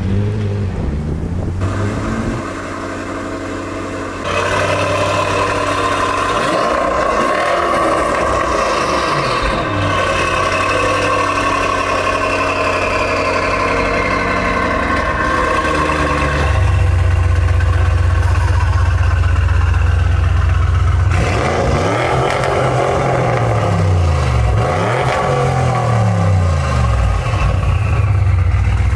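Car engine running and being revved, its pitch rising and falling several times, with a deep steady drone growing louder about halfway through.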